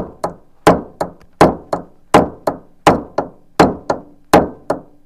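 Steady hammering, a hard blow followed by a lighter one, about three strikes a second, each with a faint ringing. The strikes land through a piece held underneath against the van's roof-mounted awning fitting while it is repaired after a strong wind broke it.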